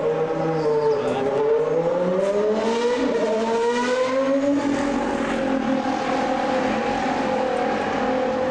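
Formula One racing car engine running: its pitch dips, climbs over a few seconds, then holds at a steady note.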